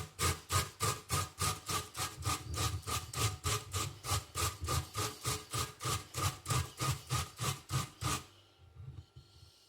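Peeled fresh ginger root scraped back and forth on a hand grater, an even run of scraping strokes at about three a second that stops about eight seconds in.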